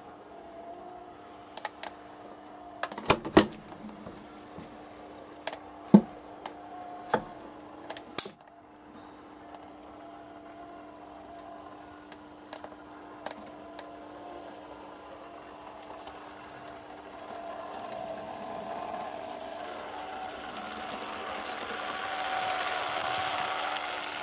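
Märklin E19 H0 model electric locomotive, in factory-original state, running light on metal M-track. Its motor and wheels make a rattling whir that grows louder from about two-thirds of the way in and is loudest near the end as it comes close. A few sharp clicks and knocks come in the first eight seconds.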